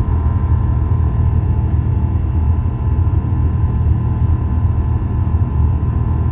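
Cabin noise of an Airbus A350 climbing out after takeoff: a steady, loud low rumble from its Rolls-Royce Trent XWB engines at climb power and the air rushing past, with a thin steady tone above it.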